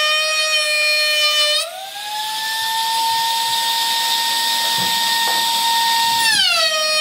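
Electric motor of a small handheld power tool whining steadily at a high pitch. About a second and a half in, the pitch rises and holds with a hiss over it, then it drops back to the lower pitch about six seconds in.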